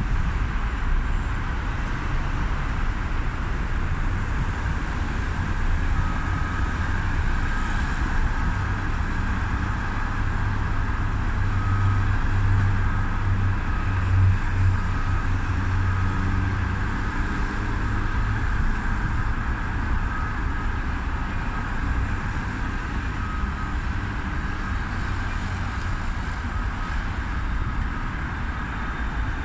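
Steady multi-lane road traffic, with a deeper engine hum swelling in the middle. From about six seconds in, a vehicle's reversing alarm beeps over and over at an even pace.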